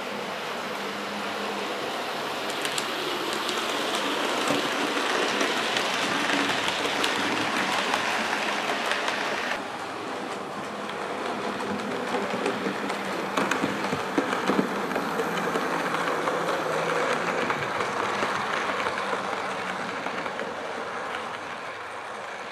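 Hornby OO-gauge model trains running on the layout's track: a steady rolling rumble and hiss of wheels and small motors, with a few sharp clicks from wheels crossing rail joints and points. The sound drops and changes suddenly about ten seconds in.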